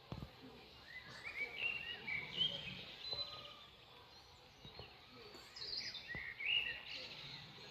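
Songbirds singing in short chirping phrases over a faint outdoor background, with a louder phrase near the end.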